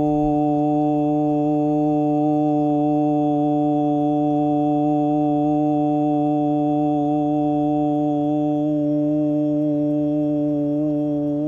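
A man's voice holding one long, steady hum on a single low pitch during a breathing meditation, wavering slightly near the end.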